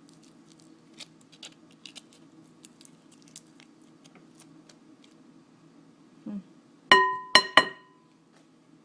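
Soft scattered clicks of food preparation, then a dull knock and three ringing clinks of a utensil tapped against a bowl, the last two close together.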